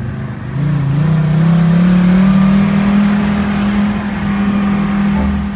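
Mercedes-Benz G-Class off-roader's engine heard from inside the cab, rising in pitch as the vehicle accelerates over about two seconds, then holding a steady pitch.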